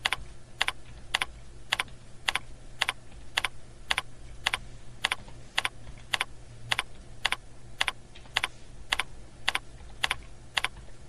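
Computer keyboard keystrokes at a very even pace, about two clicks a second, as numbers are typed into a data sheet, over a faint steady low hum.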